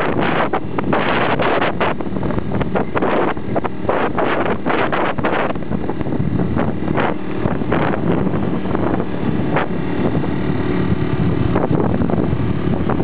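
Motorcycle engine running at riding speed, with wind buffeting the microphone in gusts, most often in the first half.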